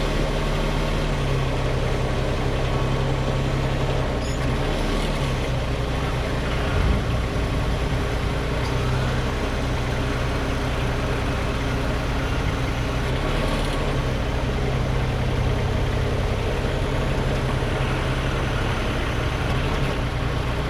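Bobcat MT100 mini track loader's engine running steadily with the M06 backhoe attachment on it, its note shifting a few times. A short knock about seven seconds in.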